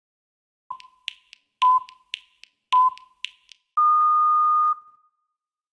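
Workout interval-timer beeps: three short beeps about a second apart with sharp clicks between them, then one longer, slightly higher beep lasting about a second. This countdown signals the end of a timed exercise interval.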